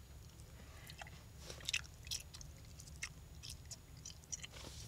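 Gum chewing close to the microphone: soft, irregular mouth clicks and smacks.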